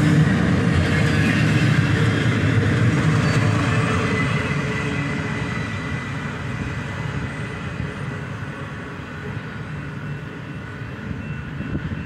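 Double-stack intermodal container train's last cars rolling along the rails, the rumble fading steadily as the tail end moves away.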